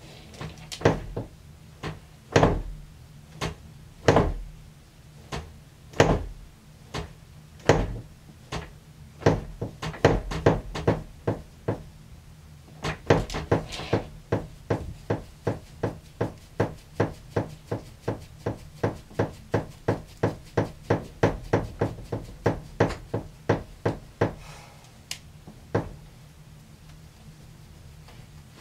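Repeated knocking, slow and uneven at first and speeding up, then a fast steady run of about two or three knocks a second before stopping a few seconds before the end.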